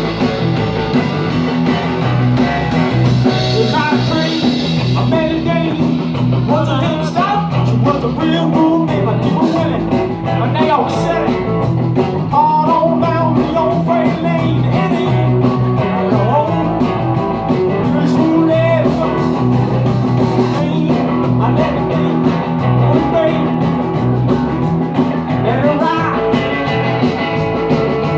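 Live rock and roll band playing: electric guitar, bass guitar and drum kit driving a steady beat, with a male lead vocal through the middle.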